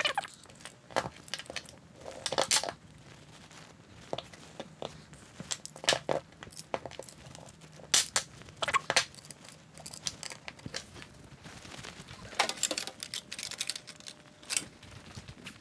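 Hand tools and a machined aluminium weapon block with two motors being handled on a wooden workbench. The sound is irregular clicks, clinks and light knocks of metal on metal and metal on wood, a dozen or so scattered through, with handling rustle between them.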